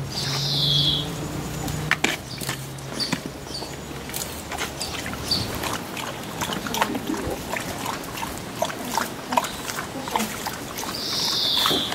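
Dogs splashing and nosing about in the water of a shallow plastic paddling pool, with many small splashes and clicks. A short high squeak falling in pitch sounds at the start and again near the end.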